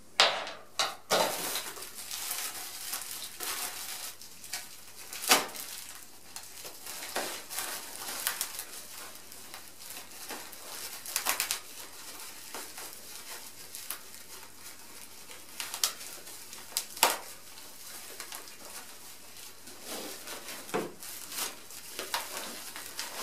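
Plastic packaging bags and wrap crinkling and rustling as small parts are pulled out and unwrapped by hand, with a few sharper clacks, the loudest near the start and about five seconds in.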